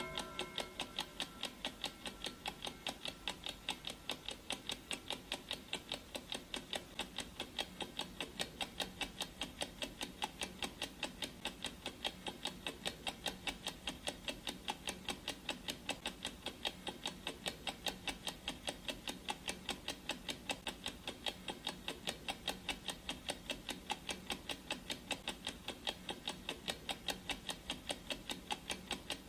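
Clock ticking sound effect of a countdown timer: a steady, even run of sharp ticks, several a second.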